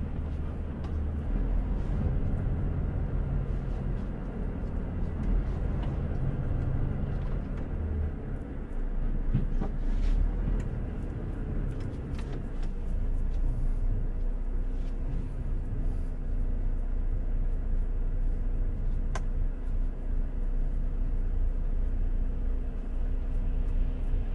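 Volvo truck's diesel engine and road noise as it drives, a steady low rumble with a few faint clicks.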